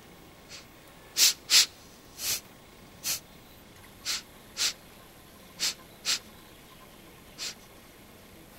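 Sniffing: about ten short, hissy sniffs, spaced unevenly and several in quick pairs, with quiet between them.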